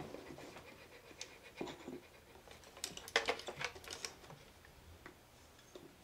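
An Etch A Sketch drawing toy being shaken to erase, rattling faintly like a maraca in short bursts, about a second in and again around three seconds in.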